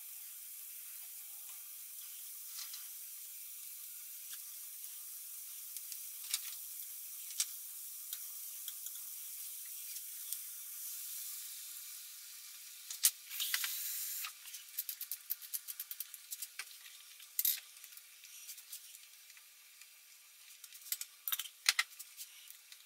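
Butter and then chopped vegetables sizzling in a hot nonstick frying pan: a steady hiss at first, a short louder burst of hissing about thirteen seconds in, then irregular crackling and sharp pops.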